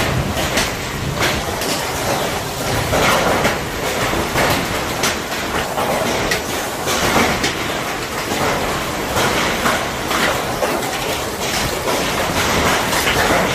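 Hail and heavy rain pelting down on a wet street: a loud, dense, continuous clatter of countless hailstones hitting.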